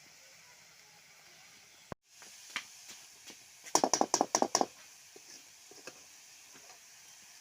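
A steady low hiss, broken off about two seconds in, then a quick run of about eight sharp knocks near the middle and a few lighter clicks after: cooking utensils knocking against each other or a pot.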